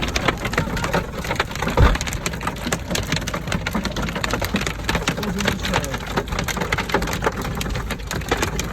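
Heavy rain drumming on a surface: a dense, irregular patter of drops, with one louder knock about two seconds in.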